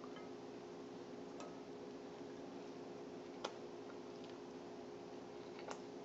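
Quiet room tone: a faint steady hum with three small sharp clicks spread through it, the clearest about three and a half seconds in.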